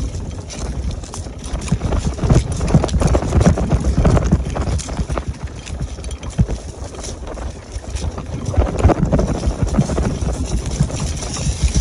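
Invacare TDX SP2 power wheelchair driving over a rough off-road path: a steady low rumble with irregular knocks and rattles as the chair jolts over the uneven ground.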